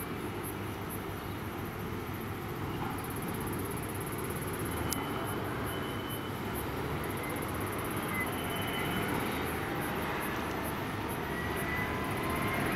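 Steady machinery din of a working container terminal: a low rumble with faint whines, some rising in pitch in the last few seconds.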